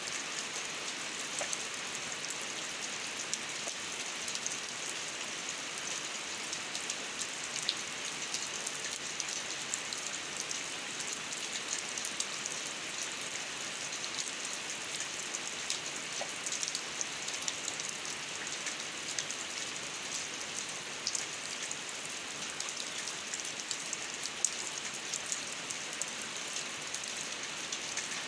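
Steady rain falling on a wet concrete drain channel and the grass beside it: an even hiss dotted with many small drop splashes.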